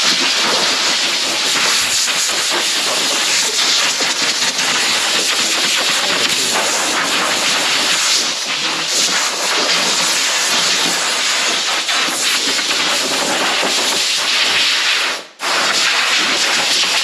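Compressed-air blow gun hissing loudly and steadily as it blows sawdust off a person's clothes. The air cuts off for a moment about fifteen seconds in, then starts again.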